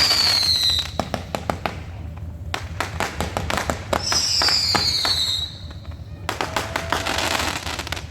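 Fireworks going off: two high whistles that fall in pitch, one at the very start and one about four seconds in, among rapid crackling pops.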